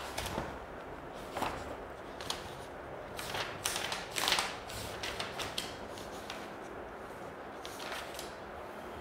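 A person handling things close by: scattered soft rustles and light knocks, busiest in the middle. A faint steady hum runs underneath.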